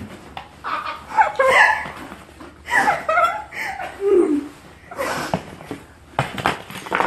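People laughing and giggling in several short bursts.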